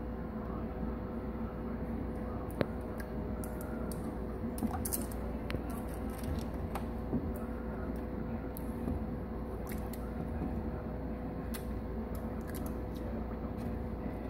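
Aquarium filter running with water churning and bubbling, and scattered clicks and splashes as a turtle scrabbles and paddles against a floating basking dock.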